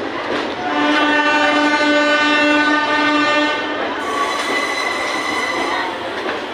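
Train horn blowing one steady chord for about three seconds over the rumble of a moving train, followed by a fainter, higher steady tone.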